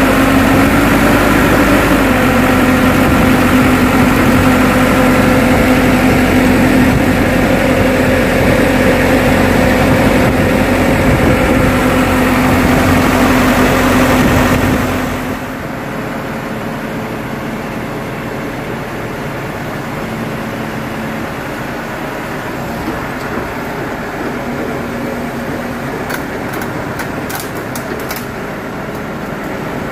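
Kato crawler excavator's diesel engine running loudly with a steady tone. It drops to a quieter, lower run about halfway through.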